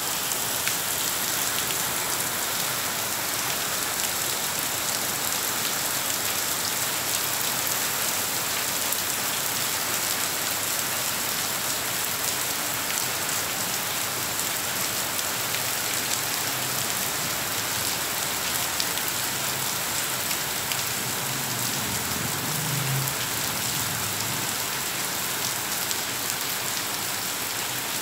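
Steady rain falling on stone paving and plants, a continuous hiss dotted with the ticks of single drops.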